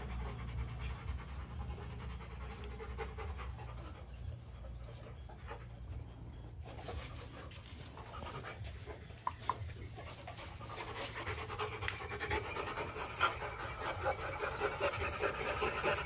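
Rottweiler puppies panting, the quick breaths growing louder over the last few seconds.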